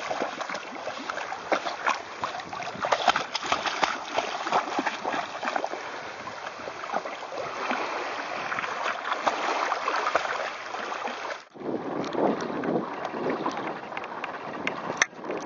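Water splashing and churning in dense irregular spatters as a dog swims beside a kayak. About eleven seconds in it changes abruptly to a steadier, lower rush of wind on the microphone and water moving against the kayak, with one sharp click near the end.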